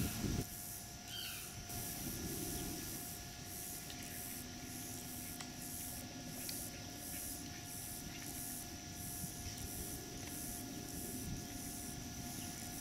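Outdoor wetland ambience: a high, rhythmic pulsing buzz of insects, about one and a half pulses a second, with a few short bird chirps in the first second or so. There is a brief low bump at the very start.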